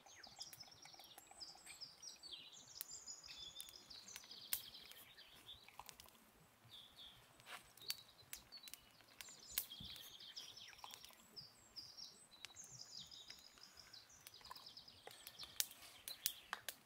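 Songbirds singing repeated high chirping phrases, with scattered sharp clicks and ticks.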